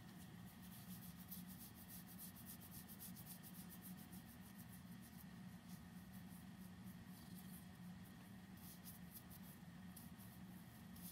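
Faint, rapid scratchy rustling of fingers scratching a cat's fur close to the microphone, over a low steady hum.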